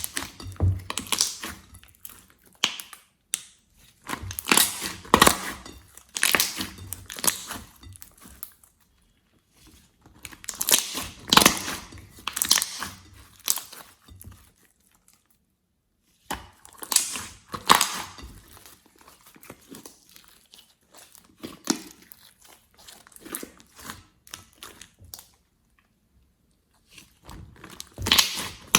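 Slime being squeezed and worked by hand, giving off runs of crackling, popping clicks in bursts of a few seconds with short pauses between them.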